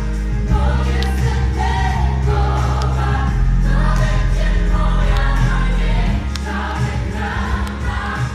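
Choir singing a gospel-style song live with a backing band, over heavy, sustained bass notes and sharp ticks.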